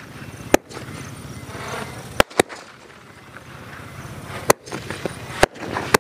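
Multi-shot aerial firework firing in succession: six sharp bangs at uneven spacing, two of them close together about two seconds in, with a rushing hiss between the shots.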